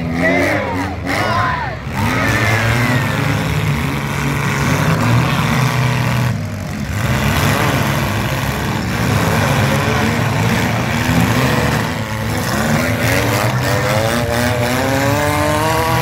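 Engines of compact demolition-derby cars running and revving in the dirt arena, over crowd noise from the grandstand. Near the end one engine revs up steadily, its pitch climbing.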